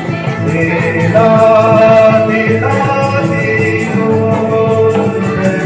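A gospel song: melody and held notes over a steady light percussion beat, with a voice singing.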